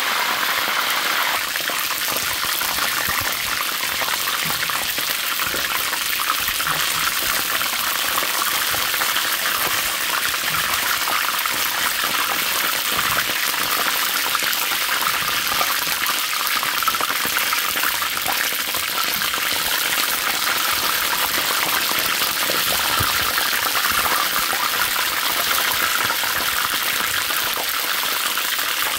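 Chicken wings frying in hot oil: a steady sizzle.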